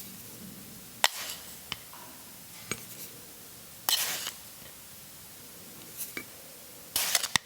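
Kitchen utensils and dishes being handled: a handful of sharp clicks and knocks spread out, with a short scraping rustle about four seconds in and a quick cluster of clinks near the end.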